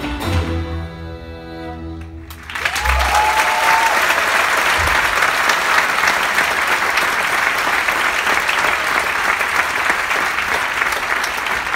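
Live Irish traditional band of fiddle, banjo and guitar lets its final chord ring out, then the theatre audience breaks into loud, steady applause about two and a half seconds in, with a short rising cheer just after it starts.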